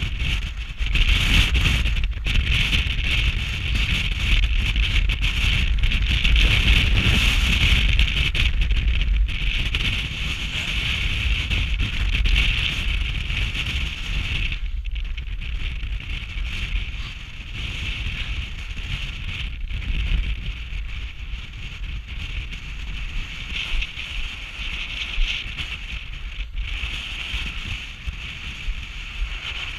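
Small camera drone's propellers buzzing steadily, with wind buffeting the microphone. It is louder for the first half and quieter after a brief drop at about 15 seconds in.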